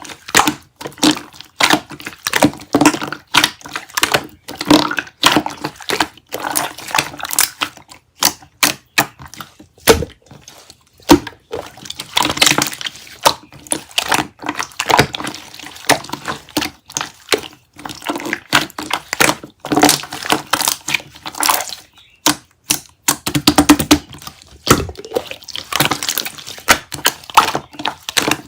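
Chocolate-milk-coloured slime being squeezed and stretched by hand, with dense wet clicks, crackles and small pops.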